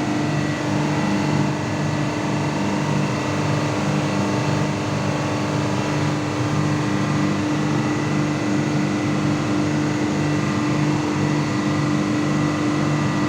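Ship's diesel engine running steadily in the engine room: a loud, constant drone with a regular pulsing beat underneath and a thin steady whine above.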